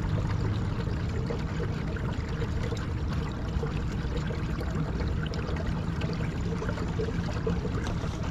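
Water rushing and trickling steadily along the hull of a moving fishing kayak, with a low rumble underneath.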